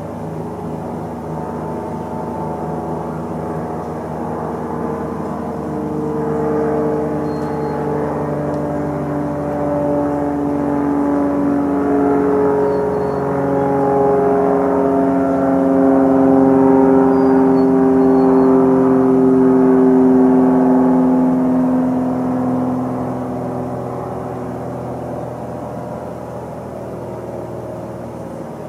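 Engine drone made of several steady tones over a low hum, swelling to a peak about two-thirds of the way through and then fading.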